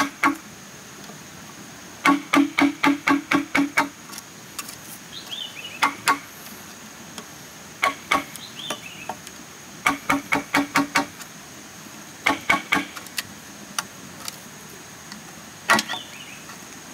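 Wooden mallet driving a steel chisel into a green bamboo pole, in runs of quick knocks, each strike ringing with the hollow tone of the bamboo tube. The runs come every couple of seconds, with single knocks in between.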